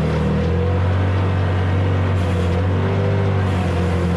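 A motor vehicle's engine running steadily, its pitch dropping about half a second in and then holding.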